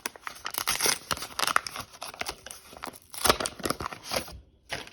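Trading card pack wrapper being torn open and crinkled, with the cards handled: an irregular run of crackling rustles and snaps.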